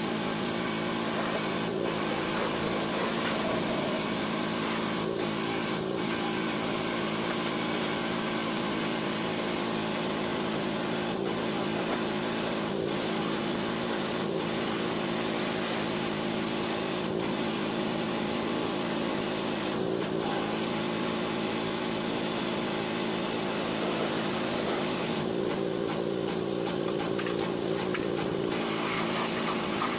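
Pressure washer's motor and pump running steadily, with the hiss of its water jet.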